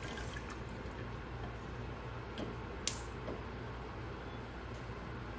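A long-handled spoon stirring thick mutton stew in an aluminium pressure-cooker pot: soft scrapes and squelches, with one sharp tap against the pot nearly three seconds in. A steady low hum runs underneath.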